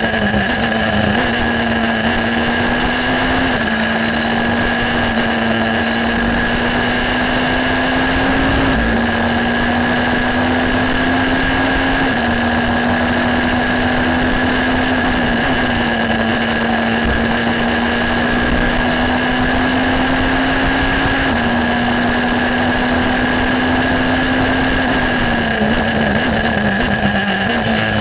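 Onboard sound of the Ligier JS53 EVO2 racing prototype's Honda 2.0-litre four-cylinder engine at full throttle. The note climbs steadily and steps down briefly with each upshift, several times, then falls in quick steps near the end as the car brakes and downshifts. A steady high whine runs over it throughout.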